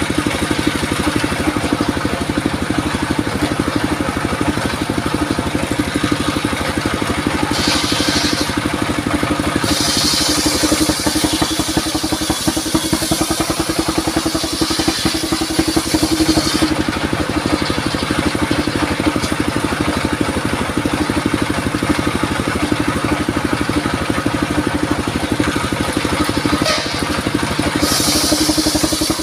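Engine-driven circular sawmill running steadily with a constant drone. A hissing rush from the blade cutting through durian wood comes in three times: briefly about eight seconds in, for about six seconds from ten seconds, and again near the end.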